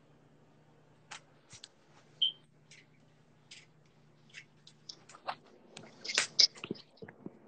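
Scattered small clicks and rustles, thickest about six seconds in, with one brief high tone a little over two seconds in.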